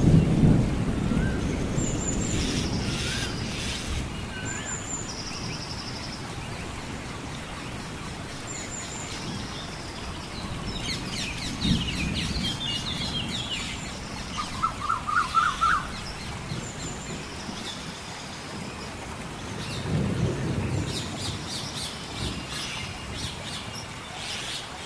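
Forest ambience: several birds chirping and calling in short high notes, with a quick trill about fifteen seconds in, over a steady rain-like hiss. Low rolls of thunder come near the start, again about halfway through, and once more later on.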